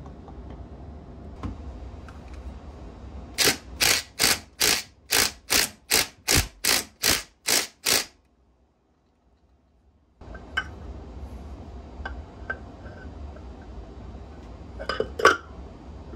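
Impact wrench fired in a quick series of about a dozen short bursts, tightening the flywheel nut on a Honda XR200 engine. Near silence and then scattered small clicks follow.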